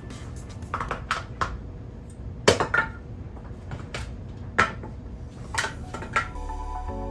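Irregular clatter of small hard objects being handled and set down, about nine separate knocks. Background music starts near the end.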